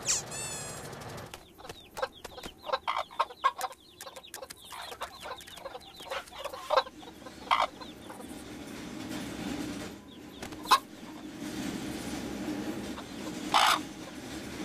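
Cartoon hens clucking: a fast run of short clucks over several seconds, then a few louder single clucks. A brief falling, warbling sound effect comes right at the start.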